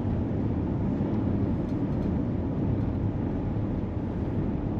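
Steady low road and engine noise of a moving car.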